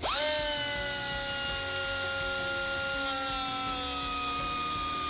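Pneumatic cut-off tool spinning up abruptly to a high whine, its pitch sagging slowly as its abrasive disc is held against the steel winch cable.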